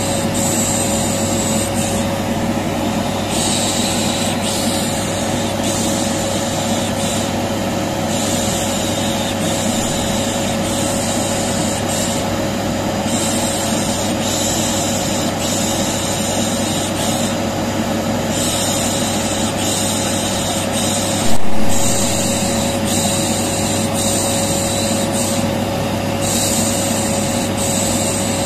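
Vacuum cleaner running steadily with a constant hum, overlaid with shushing 'pış pış' hushing sounds that come and go every second or two, used as white noise to soothe a colicky baby. A single sharp knock breaks in about two-thirds of the way through.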